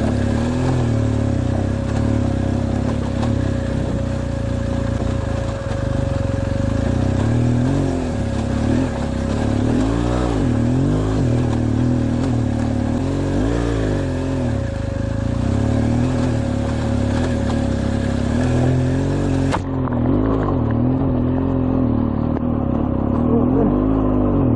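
BMW R1200GS boxer-twin engine pulling the bike up a rocky dirt trail, its revs rising and falling again and again with the throttle.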